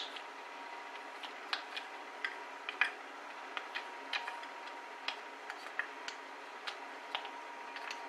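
Wooden spoon clicking and knocking against a glass bowl as pieces of dark chocolate are stirred while they melt over hot water: light, uneven ticks a couple of times a second.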